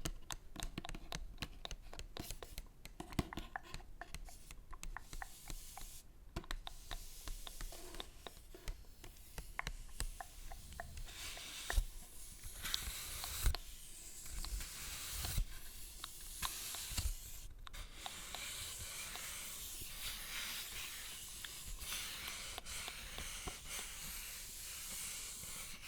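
Paper handled close to the microphone, crinkling and rustling. For the first half or so it is a dense run of small crackles and snaps, then it becomes a steadier, hissing rub of paper.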